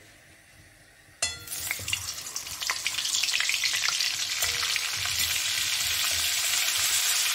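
Butter dropped into hot oil in an aluminium kadhai, bursting into a sizzle about a second in and frying more strongly as it melts, while a spatula stirs it in the pan.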